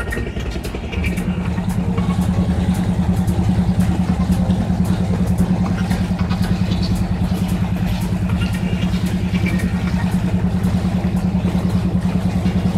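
Wooden river boat's engine running steadily, a low hum with a rapid, even beat that grows louder about a second in.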